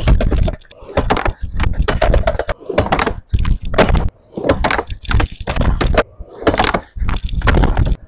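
Skateboard wheels rolling on a plywood mini ramp, with repeated sharp clacks and slaps as the board strikes the wood and flips away on failed kickflip attempts. The sound jumps abruptly from one short stretch to the next.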